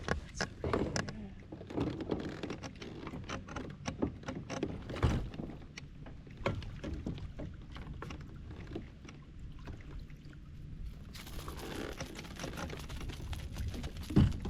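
Irregular clicks and knocks aboard a fishing kayak as a small spotted bass is landed and handled, over a low steady rumble.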